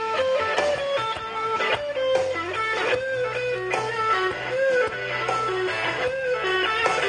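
Live blues-rock band playing an instrumental passage: a lead electric guitar line with string bends and vibrato over electric bass and drums.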